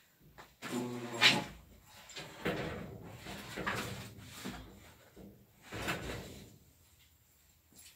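A door creaking on its hinges about a second in, followed by a run of knocks and scrapes.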